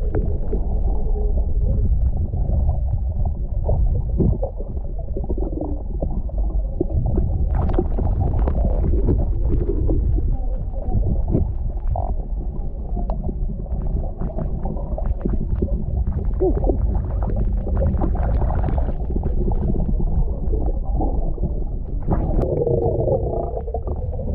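Underwater sound from a camera held below the surface: a muffled, steady low rumble of moving water with scattered clicks and crackles. Near the end, a gurgle of bubbles as the snorkeler exhales through his snorkel.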